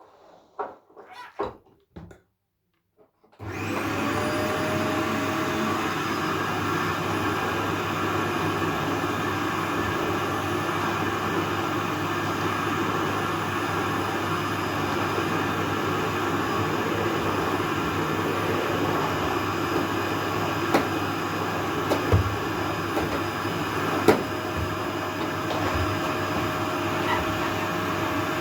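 A vacuum cleaner is switched on about three and a half seconds in; its motor whine rises briefly as it spins up, then it runs steadily. A few short knocks come before it starts, and a few more come while it runs.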